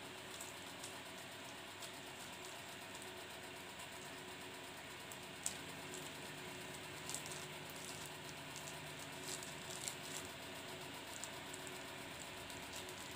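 Clear plastic bag crinkling as a baby monkey grips and handles it, a few sharp crackles mostly in the middle of the stretch. A steady low hum lies underneath.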